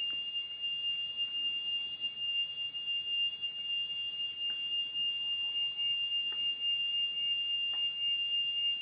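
Steady, high-pitched insect drone holding one unbroken tone, with a few faint clicks about halfway through and near the end.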